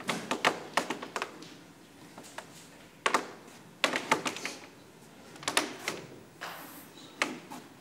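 Sharp clicks and knocks in short clusters of a few quick strokes each, coming about five times with quieter gaps between, the loudest cluster about half a second in.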